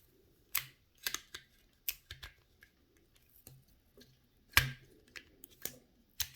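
Small plastic parts of a car's light switch clicking and tapping as they are handled, about seven irregular sharp clicks with the loudest a little past halfway.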